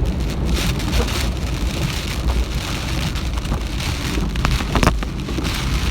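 Heavy typhoon rain pelting a car's body and windscreen, a dense hiss with countless small hits, over the steady low rumble of the car driving on a wet road.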